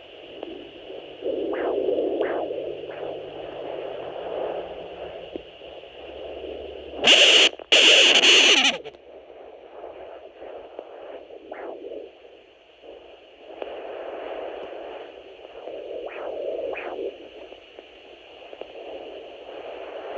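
Home Doppler fetal monitor's speaker giving out swelling, whooshing pulses of blood-flow sound over a steady hiss. About seven seconds in there are two loud crackling bursts lasting about a second and a half together.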